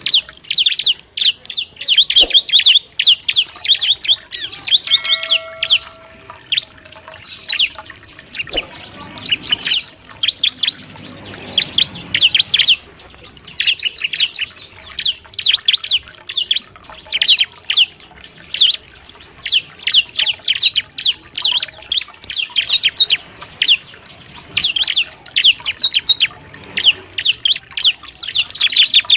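Bar-winged prinia (ciblek) chirping in quick bursts of rapid, high repeated notes, one burst after another with short pauses between them.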